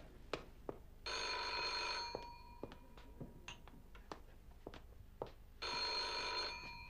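Telephone bell ringing twice, each ring lasting about a second, some four and a half seconds apart. Faint clicks and knocks fall in between.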